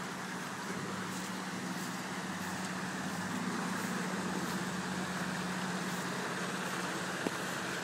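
A bus engine running with a steady low hum as vehicles drive through a flooded street, over a continuous hiss of water. A single small click near the end.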